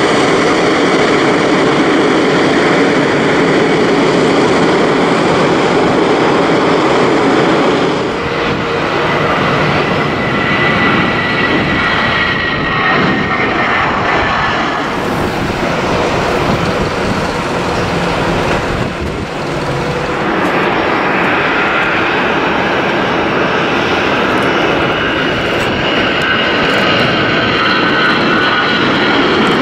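Airbus A320 jet engines. First a taxiing A320's steady engine noise close by, then from about eight seconds in, A320s at takeoff power with a high engine whine.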